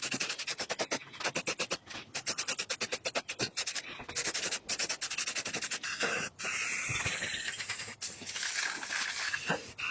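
Aerosol spray-paint can in use: for about the first six seconds a fast, even run of short hissing pulses, then a steadier spray hiss broken by a few short pauses.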